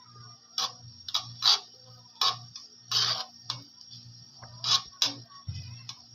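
Chopped garlic frying in butter in a pan, giving irregular sharp crackles and pops about once or twice a second over a faint steady low hum.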